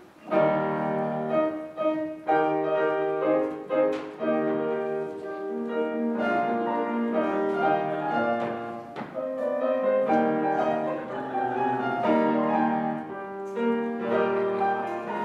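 Piano playing a classical instrumental passage, a run of held chords and melody notes between spoken dialogue and a sung number.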